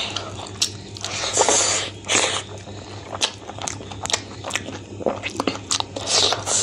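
Close-up mouth sounds of a person eating rice and chicken curry by hand: wet chewing and lip smacking with many small clicks, and squelches from fingers mixing the rice on the plate, over a steady low hum.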